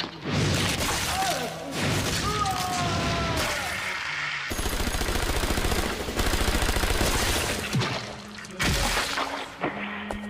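Automatic gunfire from submachine guns in an anime action scene: crashes and booms, then a long rapid burst of shots starting about four and a half seconds in and lasting about three seconds.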